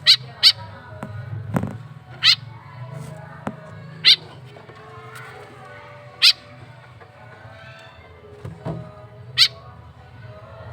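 Baby bird calling: short, sharp, high-pitched cheeps, about six of them at uneven intervals, over a steady low hum.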